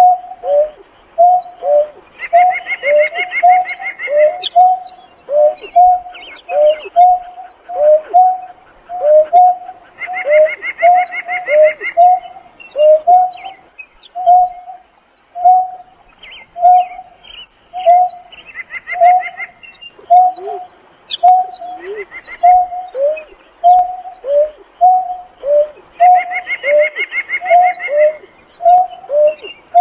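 Greater painted-snipe calling the flock: a long unbroken series of short, low hoots, about two a second, each dipping slightly in pitch at its end. A higher, rapid trill recurs every few seconds behind the hoots.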